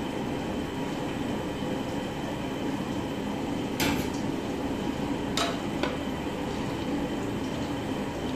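A few sharp metal clinks, a ladle or utensil knocking against the aluminium cooking pot, about midway through, over a steady background hiss.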